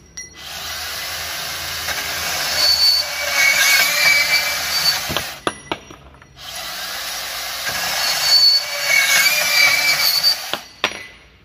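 Makita 18V LXT cordless portable band saw, set to its top speed, running twice for about five seconds each time as it cuts through a steel pipe, its blade squealing faintly on the metal. The saw stops briefly between the two runs, with a few clicks in the gap.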